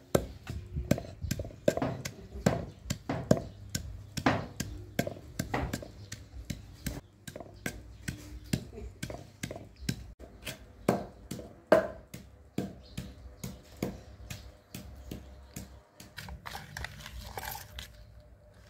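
Wooden pestle pounding in a wooden mortar, crushing a garlic-and-herb paste: a steady run of dull knocks, about three a second, that thins out near the end.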